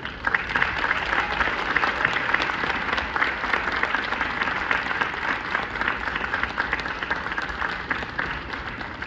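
Audience applauding: dense clapping that starts abruptly and thins out near the end.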